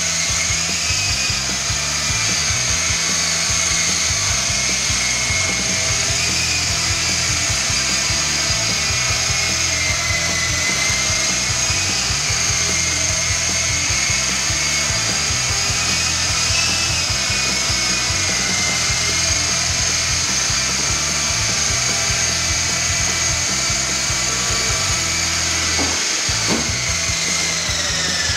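Electric motors and co-axial rotors of an Art-Tech MD500 RC helicopter whining steadily in flight, the pitch wavering a little with throttle. Near the end the whine falls as the rotors spin down after the helicopter lands.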